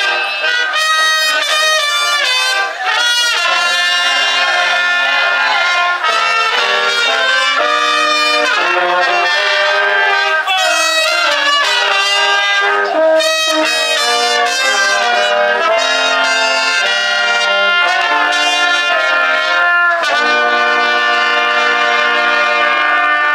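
Small German oompah-style brass band of trumpets and tuba playing a lively tune. It ends on a long held chord near the end.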